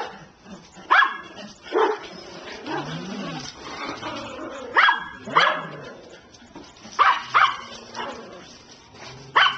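Dog barking: short, sharp single barks, about seven of them at irregular intervals, some in quick pairs.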